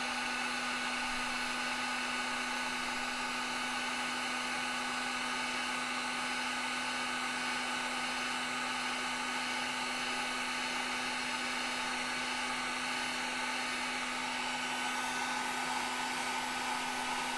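Small electric dual-temperature heat gun running steadily, its fan blowing hot air with an even hum, as it shrinks heat-shrink tubing onto a connector housing.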